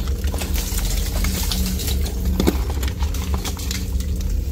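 Footsteps and scrambling over broken concrete and loose rubble: scattered scuffs and knocks, with one sharper knock about two and a half seconds in, over a steady low rumble.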